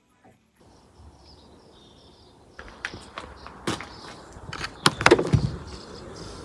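A series of sharp clicks and knocks over a faint background hiss, starting about two and a half seconds in and loudest around the middle.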